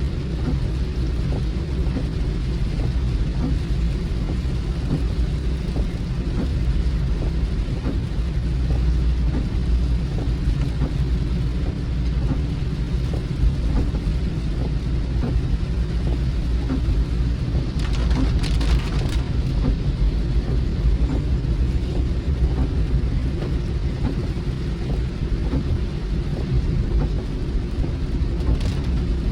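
Car driving in the rain, heard from inside the cabin: a steady low road and engine rumble under a hiss of rain, with a brief louder hiss about two-thirds of the way through.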